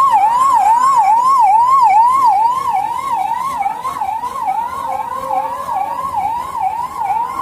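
Electronic siren in a fast yelp, its pitch rising and falling about three times a second, loud at first and a little quieter after two or three seconds.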